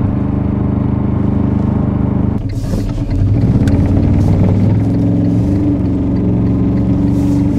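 Kubota Z482 two-cylinder diesel engine of an Aixam microcar running under way, heard from inside the cabin, with its power restriction removed. About two and a half seconds in the sound dips briefly. The engine then pulls harder, its note rising slowly.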